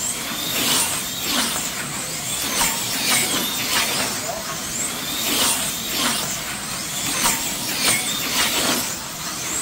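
Electric slot cars racing on a banked multi-lane track, their small motors and gears whining as they whiz past again and again in quick succession, each pass sweeping up and down in pitch.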